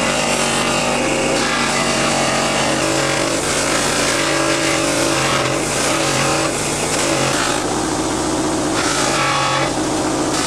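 A power tool running without a break under load, its motor pitch shifting up and down as it works against the metal of the pipe cutter, with a rough grinding or rubbing noise.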